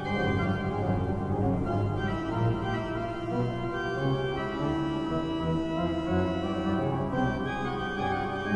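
Large church pipe organ playing sustained full chords that change every second or two, with deep bass notes played on the pedals.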